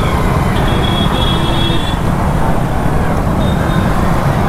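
Motorcycles riding slowly in a group through city traffic, heard from the rider's seat of a Yamaha R15 V3: a steady low rumble of engines and road noise. A faint high tone sounds from about half a second to two seconds in.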